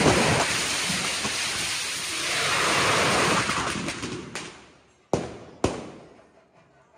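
Kerala temple fireworks (vedikkettu): a dense crackling barrage that dies away over about four seconds. It is followed by two sharp bangs about half a second apart, each ringing off.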